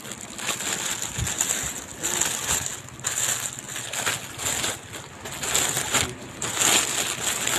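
Rustling and crinkling of plastic packaging being handled, in uneven bursts.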